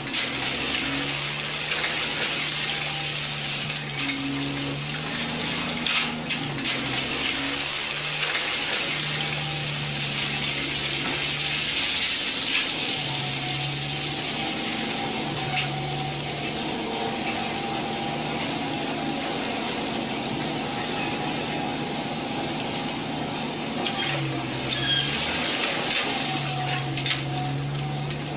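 Loose soil scraping and crunching as a plastic toy bulldozer is pushed through it by hand, with small clicks and knocks of plastic on plastic blocks.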